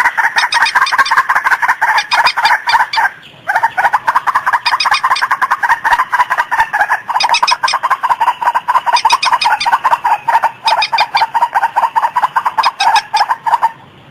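White-breasted waterhen (ruak-ruak) calls played as a bird lure: a loud, fast, continuous run of repeated harsh clucking notes, with a brief break about three seconds in and again near the end.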